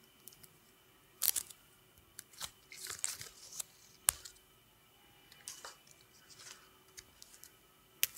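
Fresh eucalyptus sprig handled close to the microphones, a leaf being pulled off: a series of sharp snaps and crinkly leaf rustles, the loudest snaps about a second in, at four seconds and at the end.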